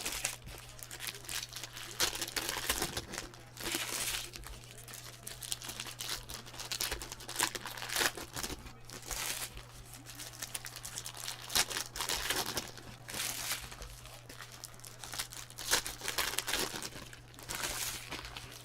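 Plastic packaging crinkling and rustling as it is handled, in irregular bursts of varying loudness, over a steady low electrical hum.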